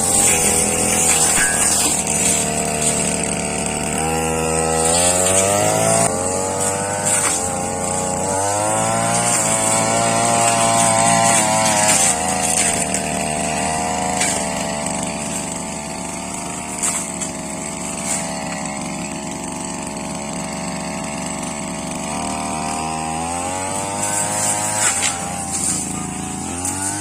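Brush cutter engine running hard while slashing saplings, its pitch climbing and falling again several times as the throttle is opened and eased off.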